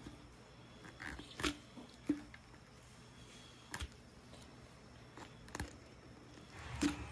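Faint, scattered short clicks from a knife cutting through a dead iguana's neck, about seven of them spread over several seconds.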